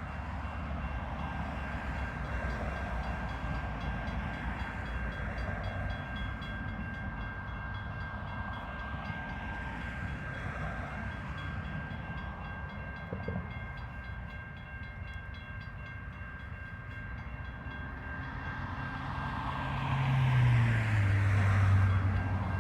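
Diesel-hauled freight train running with a steady rumble and a thin, steady high tone. Near the end the locomotive's diesel engine grows louder, its pitch dropping slightly.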